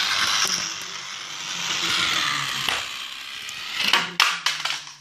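A toy train engine rolling fast over a hard surface with a steady rattling hiss, then clattering onto a tile floor with a few sharp knocks about four seconds in.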